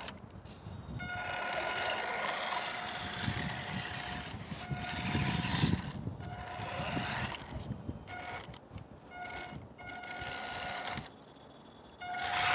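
Electric motor and gears of a WLtoys A232 1/24-scale RC off-road car whining at a steady pitch under throttle, over a hiss, switching on and off repeatedly in short bursts in the second half. A louder burst comes at the very end.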